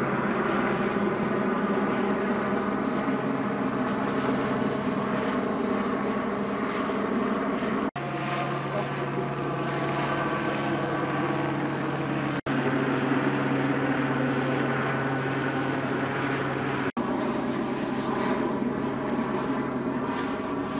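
Steady engine drone with several held tones. It cuts out for an instant three times, and a lower hum joins after the first break.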